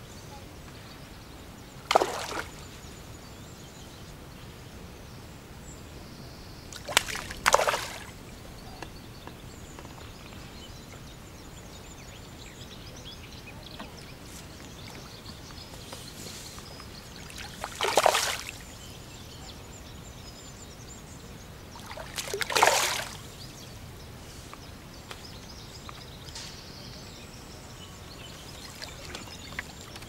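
A hooked F1 carp splashing at the surface of the water while it is played on a pole. There are five short splashes at uneven gaps: one about two seconds in, a quick pair a few seconds later, and two more over the next fifteen seconds.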